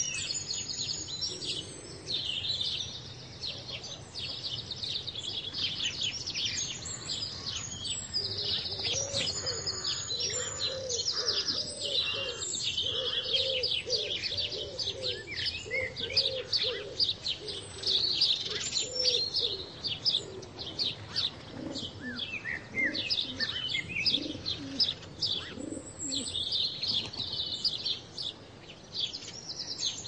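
Summer nature ambience of many wild songbirds chirping and singing at once, with a lower, slower repeated call running under them through the middle.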